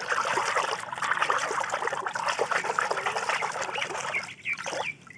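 Hands sloshing and splashing in a shallow tub of water, a busy continuous swishing that breaks off about four seconds in and ends with a last short splash.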